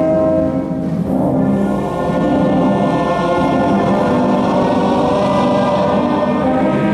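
Wind band and choir performing slow, sustained chords, moving to a new chord about a second in.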